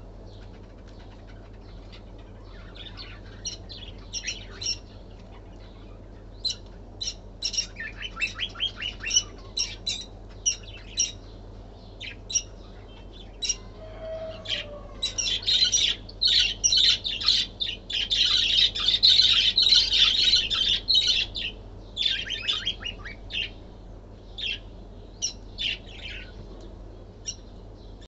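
Lovebirds chirping: short, high chirps that begin a few seconds in, come thick and fast for several seconds around the middle, then thin out toward the end, over a steady low hum.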